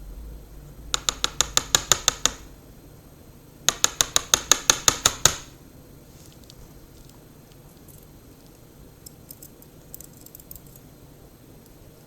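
Metal parts of a DOM IX10 dimple lock being worked during disassembly: two runs of rapid, evenly spaced metallic clicks, about seven a second, each lasting over a second. A few faint ticks follow near the end.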